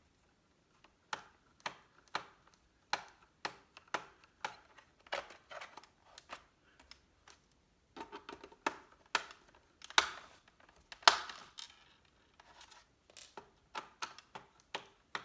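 Small screws being unscrewed with a Phillips screwdriver from a laptop's plastic hard-drive cover: a run of irregular light clicks and taps, with a few louder knocks about ten and eleven seconds in.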